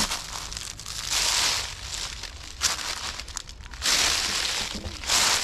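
Footsteps crunching through dry fallen leaves, in several crackling bursts about a second long each.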